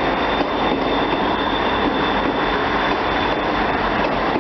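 South West Trains Class 159 diesel multiple unit running past along the platform: a steady rumble of its engines and wheels on the rails, with a faint thin high tone over it.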